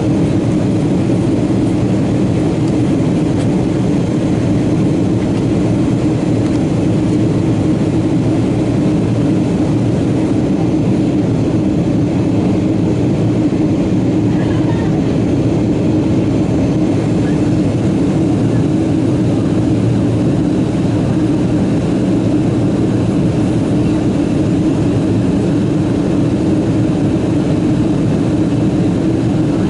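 Steady cabin noise of a Boeing 777-200 airliner in flight: an even, unbroken drone of engines and rushing air heard from inside the cabin, with a low hum that holds one pitch.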